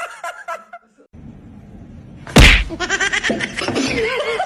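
A single sharp, loud smack about halfway through, followed by a quick run of rapid pulses and pitched sound.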